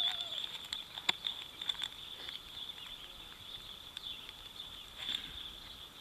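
Small items being handled and slid into a belt pouch: scattered light clicks and rustles, the sharpest about a second in. A steady high-pitched whine runs behind them.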